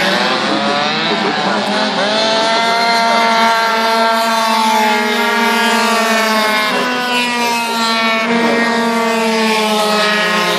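Several racing two-stroke scooter engines running at high revs around the track, a steady high-pitched whine whose pitch climbs, dips and climbs again as they pass.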